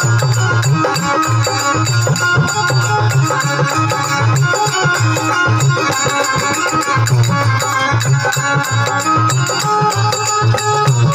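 Instrumental passage of Rajasthani devotional folk music: a steady drum beat with fast rhythmic percussion and held melodic tones, without singing.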